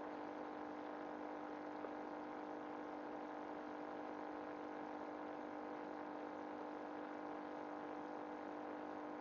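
A steady electrical hum, a buzzy tone with many overtones, with a single faint tick about two seconds in.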